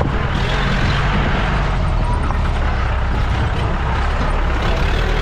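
Off-road jeep driving on a rough track: a steady engine and road rumble.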